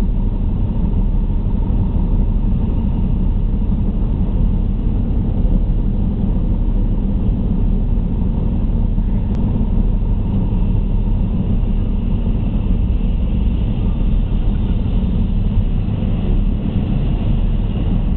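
Hovercraft engines and fans running with a steady, loud low rumble, heard from inside the passenger cabin. A higher whine grows slightly near the end.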